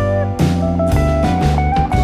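Blues background music: guitar over bass and a drum kit with a steady beat.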